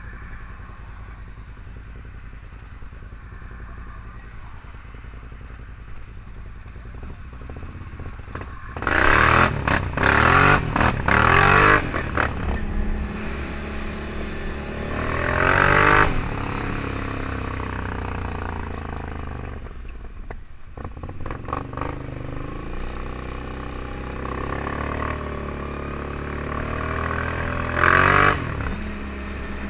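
ATV engine idling, then revved hard in several loud bursts about nine seconds in. It pulls away with the engine pitch rising, then settles into riding, the pitch gliding up and down. There is another loud rev near the end.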